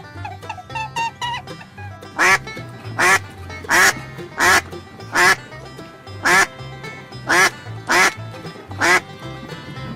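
A duck quacking: nine loud quacks, starting about two seconds in and coming roughly one every 0.7 to 1 s, over soft background music.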